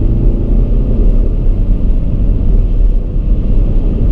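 Diesel engine of a 2016 DS5 BlueHDi 180 (2.0-litre four-cylinder) heard from inside the cabin on the move, a steady low drone mixed with tyre and road rumble.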